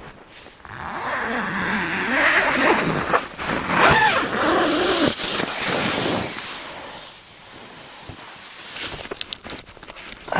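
Tent door zips being pulled open, long rasping zip runs with rustling nylon fabric, then a few short clicks near the end.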